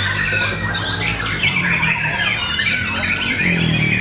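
White-rumped shamas (murai batu) singing, a dense run of overlapping whistled and chattering phrases with no pause, over a low steady hum.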